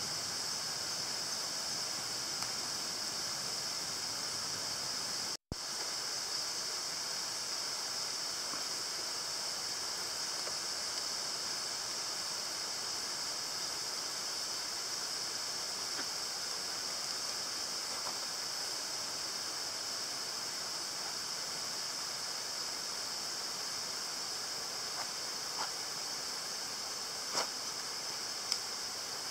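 Steady high-pitched hiss of a night-time insect chorus. It cuts out for an instant about five seconds in, and a couple of faint ticks come near the end.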